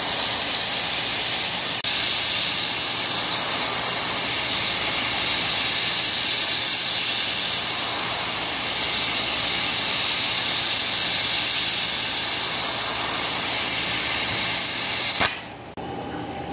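Oxy-fuel torch flame hissing steadily as it heats a water pump's pulley hub to free it from the bearing shaft; the hiss cuts off abruptly near the end.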